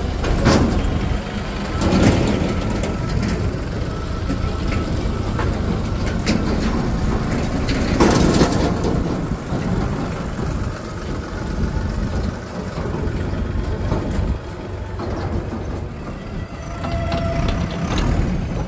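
Diesel tractor engines running, from a Mahindra Yuvo and a Sonalika tractor each hitched to a trolley, with louder swells about two and eight seconds in.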